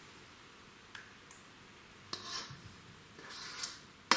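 A utensil scraping thick curry sauce out of a stainless steel pan in a few short scrapes, with a sharp knock near the end.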